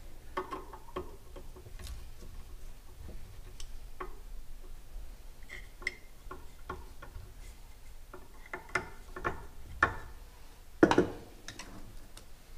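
Hand screwdriver and machine screws clicking and tapping irregularly as drive modules are fastened down onto a metal mounting plate, with one sharper knock about eleven seconds in.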